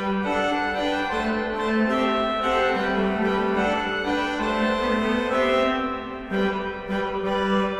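Pipe organ playing a carol melody over sustained chords, the notes changing in steady succession, with a short break between phrases about six seconds in.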